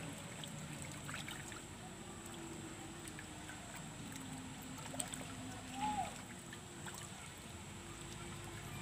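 Faint, steady waterside ambience: an even low hiss of gently moving water with a thin, high steady whine above it. A brief faint rising-and-falling note sounds about six seconds in.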